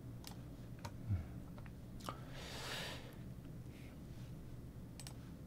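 A few sharp, scattered computer mouse clicks over quiet room tone, with a soft hiss a little past two seconds in.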